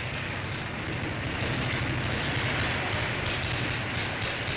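Machine-shop noise from a machine tool facing off a Rolls-Royce Merlin aero-engine crankcase, with metal cuttings showering off the work. It is a steady low hum under an even hissing rush.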